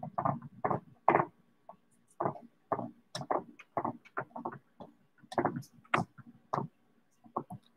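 Kitchen knife sawing off the overhanging pie crust along the rim of a glass pie dish: a run of short strokes, about two or three a second, with a brief pause about five seconds in.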